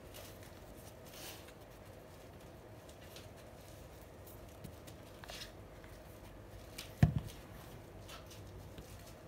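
Faint rubbing and soft taps of hands handling a watch box, then a single dull thump about seven seconds in as the box is set down on a wooden tabletop.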